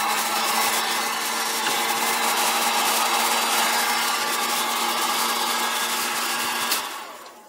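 Hot-air blower (heat gun) running steadily with a low hum, warming a glass candle jar so it won't crack from thermal shock when the wax goes in. It is switched off near the end and the sound dies away.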